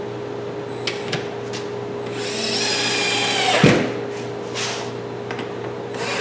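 Power drill driving a large screw through a plywood clamp rack into a wall stud: a couple of light knocks about a second in, then the drill runs for about a second and a half and its pitch drops sharply as the screw draws tight.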